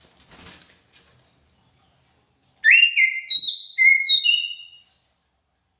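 Greater racket-tailed drongo singing a short phrase of four loud, clear whistled notes, the first sweeping sharply upward, starting about two and a half seconds in.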